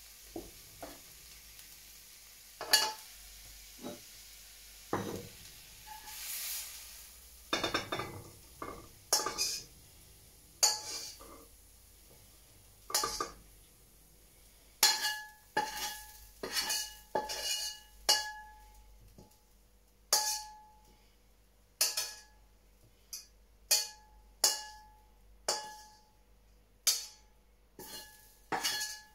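Slotted metal spatula scraping and knocking against a steel wok as stir-fry is scraped out of it, with light sizzling. The scrapes and knocks come irregularly at first. In the second half they come about once a second, and most of them leave the wok ringing with a short clear tone.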